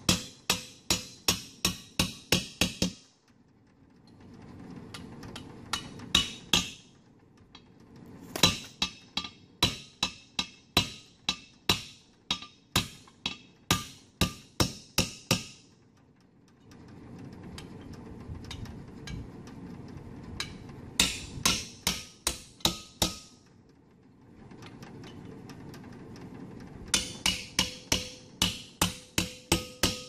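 Hammer blows on a punch driving wheel studs into a 1964 Dodge D100's front hub and brake drum until they seat. Sharp metal strikes come in five quick runs of about three to four blows a second, with pauses between.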